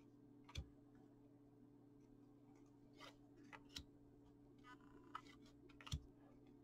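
Faint handling of trading cards: light rustles as cards slide across each other and about five brief ticks of card edges, the sharpest near the end. A faint steady low hum sits underneath.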